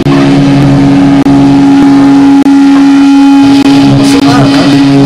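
Live rock band playing very loud and distorted, holding one sustained note over a lower drone. The recording is overloaded and the sound cuts out for an instant three times.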